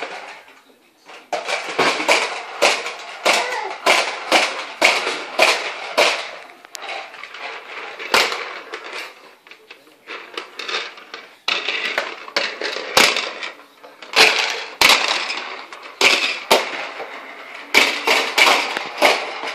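Two push-along corn popper toys rolled across carpet, their plastic balls popping against the clear domes in rapid, irregular runs of sharp pops, thinning out for a moment about nine seconds in.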